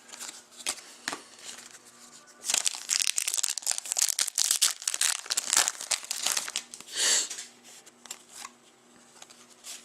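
Crinkling and tearing of a foil trading-card pack wrapper being handled and opened: a few light clicks, then a dense stretch of crinkling, a last short crinkle and the soft clicks of cards being handled.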